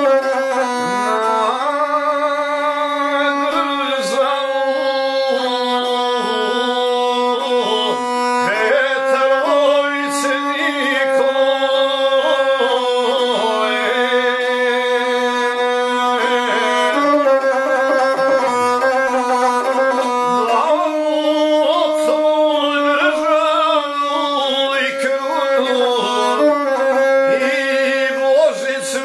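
A guslar singing an epic song to his own gusle, the single-string bowed folk fiddle. The voice wavers and bends over the gusle's steady bowed tone, which shifts pitch briefly a couple of times.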